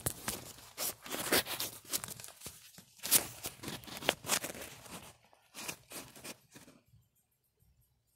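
Handling noise from the phone camera being moved around and wedged in place in the engine bay: a run of irregular rustles, scrapes and knocks against the mic that stops about seven seconds in.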